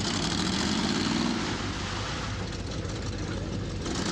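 Chevrolet K5 Blazer's engine revving while the truck is stuck in deep mud. The revs swell in the first second or so and ease off about halfway through.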